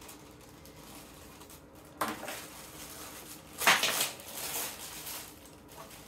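A cardboard subscription box and its packaging being opened by hand: a sharp knock about two seconds in, then a louder brief scraping rustle a little later, and softer rustling after it.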